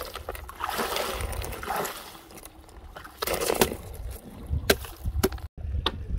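A stone struck again and again into broken ice over a hole in a frozen stream, crunching the ice and splashing the water beneath, then a few sharp separate knocks of stone on ice near the end.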